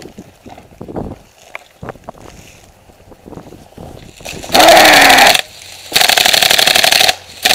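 Airsoft M249 electric light machine gun firing on full auto in two bursts of about a second each, a very fast run of clicks over a motor whine. A third burst starts near the end. Before the bursts there is only quiet rustling of gear and steps.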